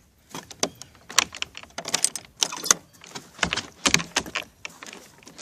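Hard objects clattering and rattling in a quick, irregular run of clicks and clanks, as loose items are rummaged through and moved about.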